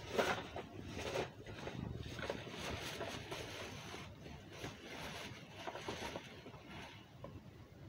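Plastic shopping bag rustling and crinkling as it is rummaged through and items are pulled out, loudest in the first second or so and dying down near the end.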